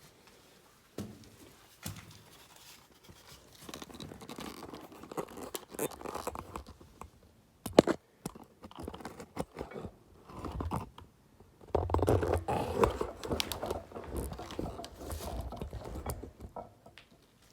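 Irregular scraping and crunching, louder in the last third, with one sharp click a little before halfway.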